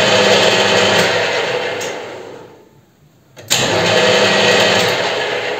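Metal lathe (Weisan CJM360) spindle and gear train starting up suddenly and running steadily, then switched off and coasting down, its sound fading over about two seconds. This happens twice. The slow run-down is the fault being shown: the spindle has no braking and keeps turning, and keeps feeding the carriage, for several revolutions after switch-off.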